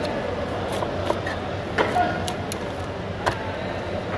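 A knife cutting tuna into steaks on a wooden chopping block: about four sharp knocks of the blade and chunks striking the board, over a steady background hum.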